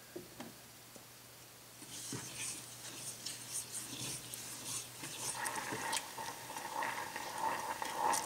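Brown sugar and water heating in a stainless steel saucepan start to crackle and sizzle about two seconds in, building into a steady bubbling as the syrup nears the boil, with a silicone spatula stirring through it.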